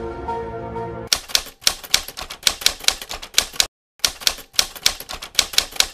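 Rapid clicking of keys being typed on a computer keyboard, starting about a second in after a brief bit of music, with a short silent break near four seconds.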